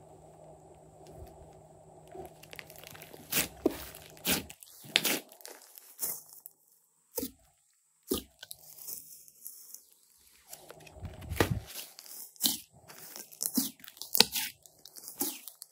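Thick slime being kneaded and pressed by hand, giving irregular sharp pops and clicks that come thicker from about three seconds in.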